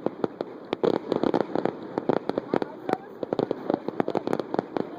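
Rapid, irregular popping and crackling of many fireworks and firecrackers going off, dozens of sharp cracks with no even rhythm.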